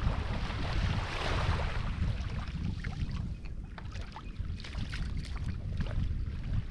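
Wind rumbling and buffeting on the microphone at the water's edge, with a rush of surf-like hiss about a second in that dies away.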